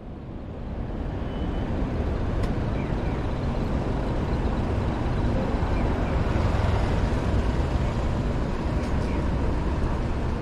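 Busy city street ambience: a steady rumble of traffic with a murmur of voices, fading in over the first two seconds.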